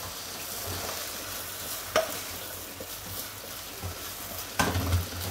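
Food sizzling in a frying pan on a gas stove while wooden spoons and spatulas stir and scrape in the pans. There is a sharp knock about two seconds in and a few more knocks near the end.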